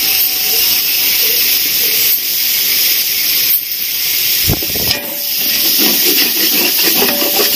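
Chicken masala sizzling and steaming in a large aluminium pot, a steady hiss. About four and a half seconds in there is a thump, followed by the scraping and clinking of a metal spatula stirring in the pot.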